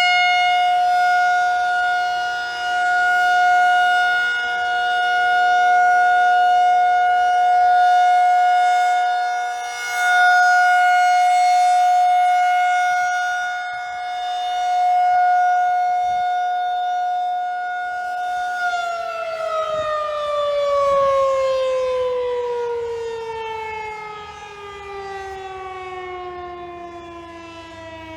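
Federal Signal 2001-SRN rotating electromechanical tornado siren sounding a steady tone whose loudness swells and fades every few seconds as it rotates. About 19 seconds in it is shut off and winds down, its pitch falling steadily as the rotor slows.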